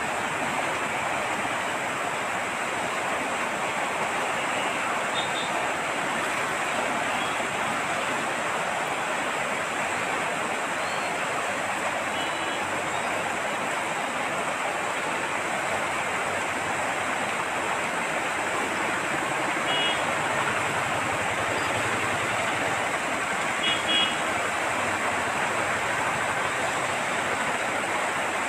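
Floodwater rushing in a fast torrent across a street, a steady, unbroken rushing. A few faint, brief high chirps sound now and then over it.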